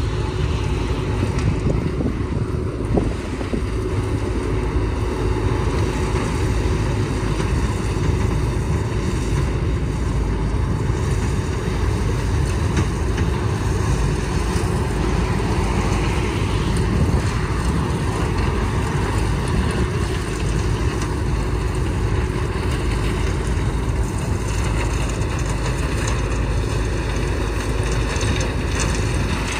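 CLAAS Mega 204 combine harvester running steadily under load as it harvests dry flint corn, its engine and threshing machinery making an even, unbroken drone with a faint steady hum.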